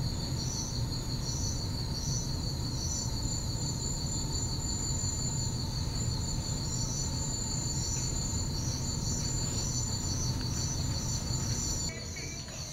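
A continuous chorus of chirping insects, with high, finely pulsing trills and a shriller chirp that comes and goes above them, over a steady low rumble.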